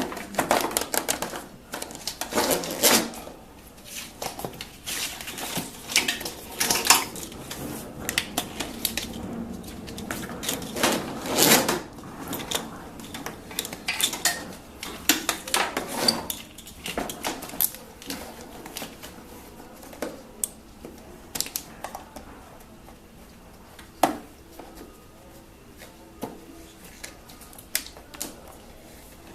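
Irregular clicks, knocks and rattles of wiring-harness cables and plastic connectors being handled and pushed through the trap-door opening in a golf cart's front body panel, with rustling between the knocks.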